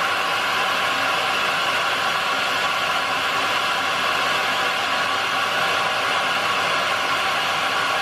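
Kealive 700 W bagless vacuum cleaner running steadily with its hose sucked against a plate. A rush of air carries a faint steady whine.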